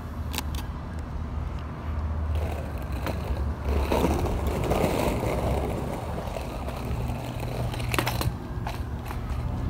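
Skateboard wheels rolling over rough asphalt, a gritty rumble that swells about halfway through, with a few sharp clicks over a steady low drone.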